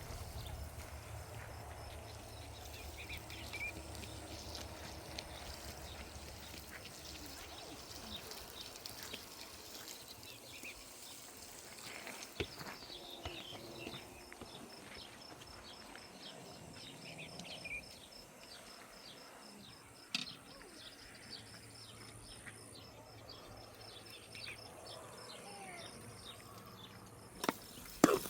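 Quiet rural outdoor ambience: scattered bird chirps and, through the middle, a fast, even insect trill. A few isolated knocks are heard, and several sharp knocks come near the end.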